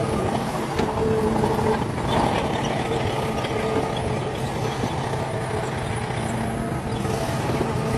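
Heavy diesel earthmoving machinery running steadily, a bulldozer and dump trucks at work, with an even, continuous engine drone.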